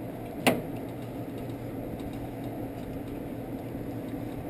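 A single sharp metal click of a wrench on a ball-joint nut about half a second in, over a steady low hum while the nut is snugged by hand.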